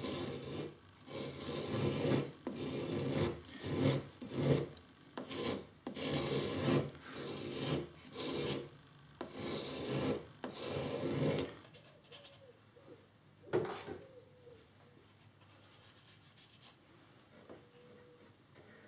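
A small brass thumb plane making repeated shaving strokes along the edge of a thin strip of wood, about one to two strokes a second. The strokes stop about two-thirds of the way through, and a single light knock follows a couple of seconds later.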